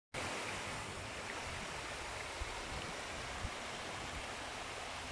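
Small woodland stream running steadily over rocks and a low cascade, with a couple of brief low bumps about halfway through.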